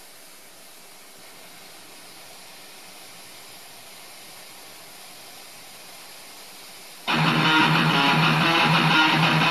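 Cassette tape playing back on a Technics RS-TR170 double cassette deck. A faint steady tape hiss runs first, then about seven seconds in guitar music starts abruptly and loud.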